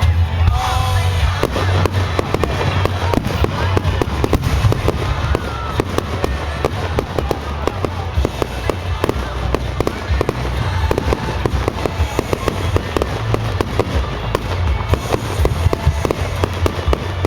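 Fireworks display: a dense, continuous run of bangs and crackles, many per second.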